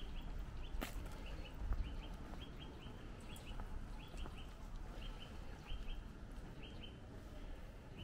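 Small birds chirping in short, high notes, mostly in quick pairs, repeating about twice a second, over a low rumble of wind on the microphone.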